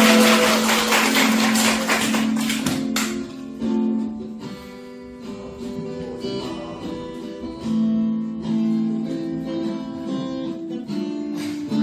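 Acoustic guitar music: strummed chords with ringing held notes, strummed hard for the first three seconds and then played more lightly.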